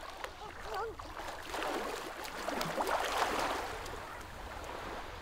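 A small wave washing up a pebble beach, swelling and breaking with a fizzing rattle of water over the shingle about halfway through, then draining back.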